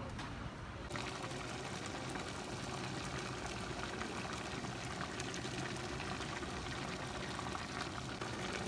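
A pot of Edikang Ikong soup bubbling and simmering on the stove, a steady crackling hiss that comes in about a second in.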